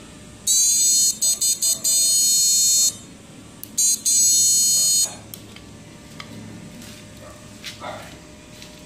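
High-pitched electronic buzz from an SG3525 PWM module and 2-MOSFET inverter test rig, in two bursts about two seconds and one second long, the first cutting in and out a few times. A few faint clicks follow.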